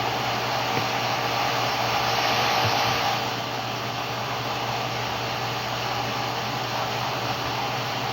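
Steady rushing noise, like a blower motor, with a low hum underneath; it comes up quickly just before and holds at an even level throughout.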